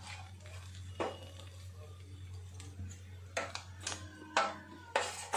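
A metal spatula clicks and scrapes against a dosa griddle (tawa) several times in the second half, over a faint steady low hum.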